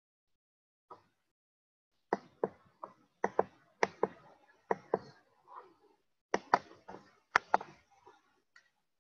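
A series of sharp, irregular knocks: one faint tap about a second in, then a rapid, uneven string of louder knocks from about two seconds in until near the end.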